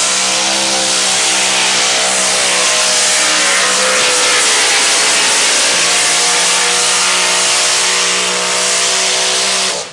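Super stock diesel pulling tractor at full throttle hauling the sled down the track: a loud, steady engine note over a dense rush of noise. It cuts off suddenly near the end.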